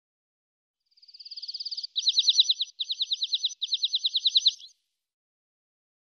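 A small songbird's rapid trill of repeated high chirps, about ten notes a second. It starts faint and swells, then goes on in three louder runs with brief breaks.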